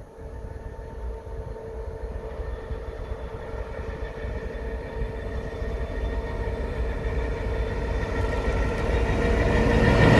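A class 232 'Ludmilla' diesel locomotive approaches hauling a passenger train. Its engine rumble and a steady whine grow steadily louder, and the sound is loudest as the locomotive passes close near the end.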